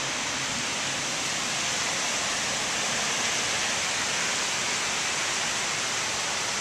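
Heavy rain pouring steadily during a rainstorm, a dense, even hiss with no let-up.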